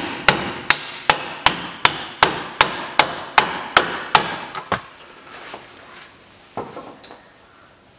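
Hammer blows on a tubular drift held against the inner race of a new rear wheel hub bearing, driving the hub home onto the stub axle. The strikes come steadily, about two and a half a second, and stop about four and a half seconds in.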